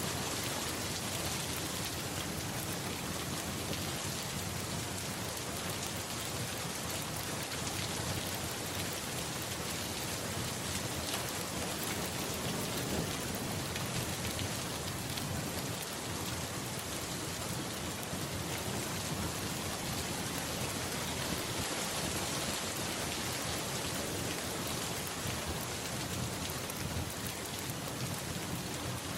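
Steady, dense rainfall, with a low rumble of thunder around the middle.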